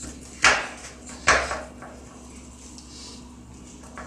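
Two knocks of a round aluminium baking tray against a wooden table, nearly a second apart, each ringing briefly, as buttered kadayıf is pressed down in it by hand.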